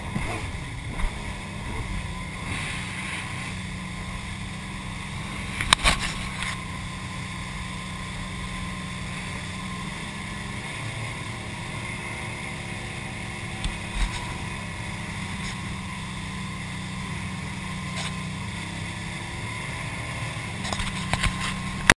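Jet ski running at speed: a steady, muffled drone of engine and rushing water, broken by a few sharp knocks, the loudest about six seconds in.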